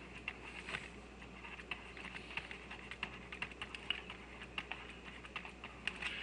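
Faint, irregular clicks and taps of a stylus on a tablet or pen-tablet surface during handwriting, several a second.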